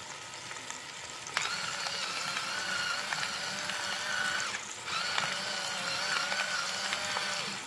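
Electric salt and pepper grinder running in two spells of about three seconds each, its motor giving a wavering mechanical whir as it grinds seasoning onto pork tenderloin. Underneath, oil sizzles steadily in the pot as the meat sears.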